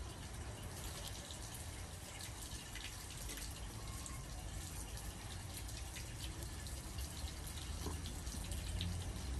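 Faint, irregular clicks of spoons against ceramic soup bowls and the small wet sounds of soup being eaten, over a low steady rumble.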